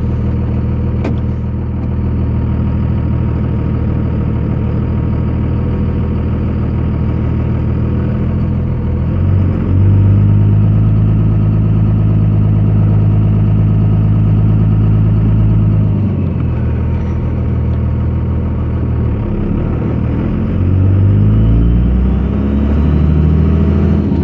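2002 Cummins 24-valve 5.9 L turbo-diesel, heard from inside the cab, pulling hard under acceleration. The revs climb, drop back about two-thirds of the way in, then climb again near the end. The engine is being loaded to bring out a knocking or thumping that the owner hears only under load and that goes away with the clutch in or off the pedal.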